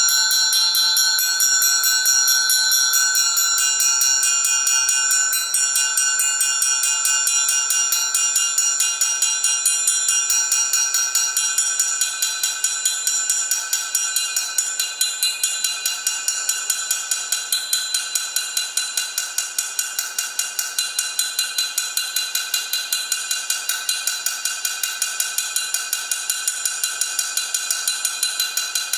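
Triangle struck in a rapid, even tremolo, ringing with many steady high overtones; about halfway through it gets quieter and the separate strokes stand out more.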